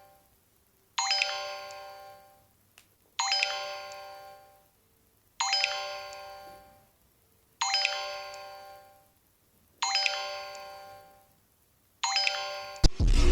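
Mobile phone ringtone: a short bell-like chime phrase that starts sharply and dies away, repeating about every two seconds. Near the end it is cut off abruptly by loud music with a heavy low throb.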